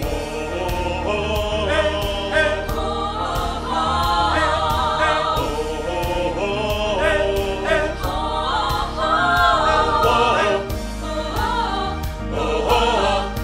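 Mixed choir of men's and women's voices singing a wordless, sustained chorus in harmony over a steady beat.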